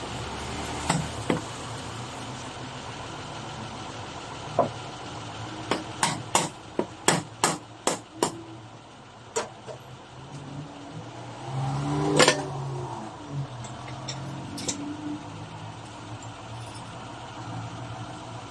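A quick run of about eight sharp knocks or clicks, with a few scattered single clicks and one louder, fuller knock, over a steady low hum.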